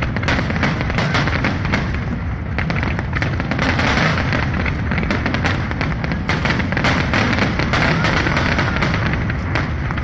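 Fireworks display firing a rapid, continuous barrage: many overlapping bangs and crackles with no break.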